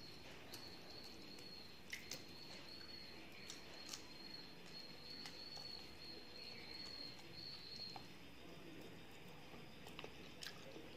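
Faint eating sounds: fingers mixing rice and fried fish on a metal plate, and chewing, with a few sharp clicks. A high, steady trill with short breaks runs in the background and stops about eight seconds in.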